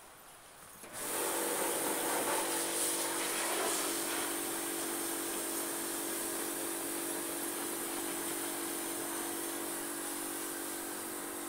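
Self-service car wash machine spraying water from its hand wand with a steady hiss over the constant hum of its pump, cutting in about a second in after a brief lull.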